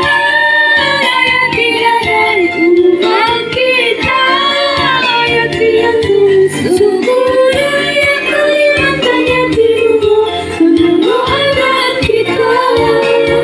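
Female voice singing a melody over instrumental backing music.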